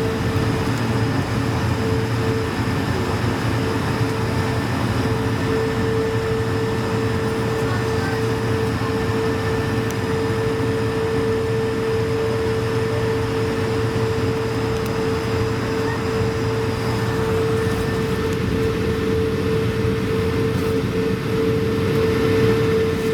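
Airbus A220-300 cabin noise: a steady rush of air with a constant, clear hum-like tone held throughout, the aircraft sitting or taxiing before departure.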